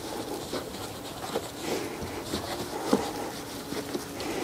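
A large microfibre drying towel being wiped and dragged over a car's painted side panels: soft, uneven rubbing and rustling of fabric on paint, with short scraping strokes.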